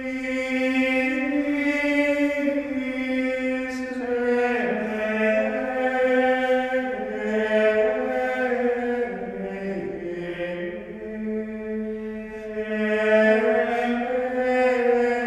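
Plainchant sung in unison: a single unaccompanied melodic line of held notes that steps up and down.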